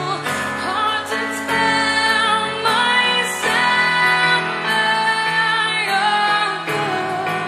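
Music: a song with a woman singing long held notes over an instrumental backing.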